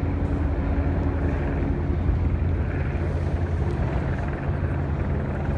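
Steady low rumble of a vehicle engine with a droning hum, level throughout.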